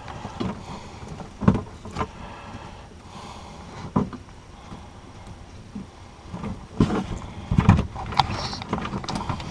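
Small plastic clicks, taps and rustling as an NMEA 2000 cable's threaded connector is fitted to a T-connector and screwed tight by hand. Several short, sharp knocks are scattered through it, the loudest a cluster about seven to eight seconds in.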